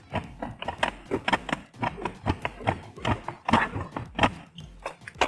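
A rapid, irregular run of clicks and knocks, several a second, as a jack press is worked to push the shaft out of a stand fan's rotor.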